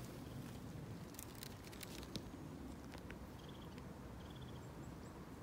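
Quiet footsteps on a mossy forest floor, with a few scattered light crackles of twigs and leaves underfoot.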